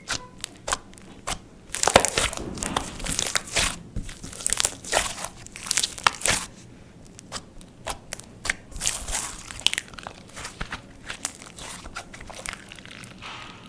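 Clear slime being squished and stretched by hand, giving a rapid run of sticky crackling clicks and pops that comes in bunches.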